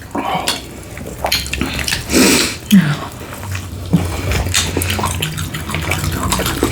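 Close-miked eating sounds: wet chewing and mouth smacks, with irregular clicks.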